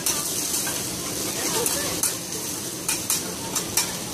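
Food sizzling on a large round flat-top griddle, with a metal spatula clacking and scraping against the iron surface several times, mostly in the second half.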